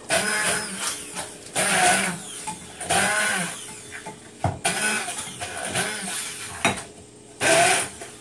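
Sphynx kittens purring close to the microphone, broken by several short loud bursts of rustling as they shift against the bedding and the phone.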